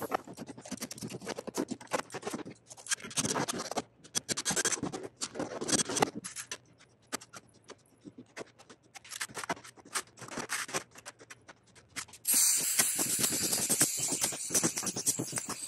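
Irregular metallic clicks and scrapes of clecos and pull rivets being handled in the holes of an aluminium skin. Near the end a pneumatic pull-rivet gun is switched on and hisses steadily.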